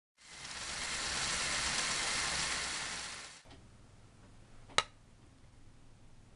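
Lego Technic drivetrain running: electric motor and plastic gears making a steady grinding whir that fades in, then cuts off abruptly about three seconds in. A single sharp click follows about a second and a half later.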